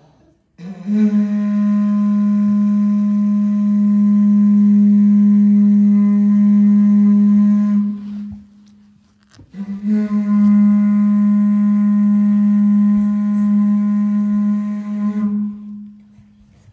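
Pūtātara, a Māori conch-shell trumpet, blown in two long notes of one steady pitch, each held for about six or seven seconds with a short break between them.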